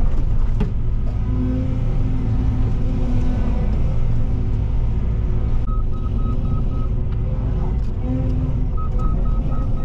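Cat 313 excavator's diesel engine running steadily with its hydraulics working. About halfway through, the travel alarm beeps rapidly, about five beeps a second for just over a second, and starts again near the end.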